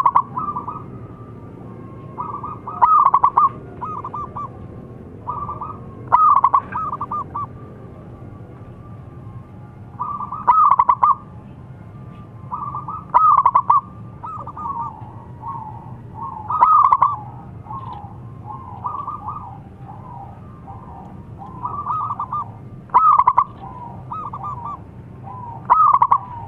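Zebra dove (perkutut) cooing: a phrase of rapid, staccato cooing notes about every three seconds, repeated again and again.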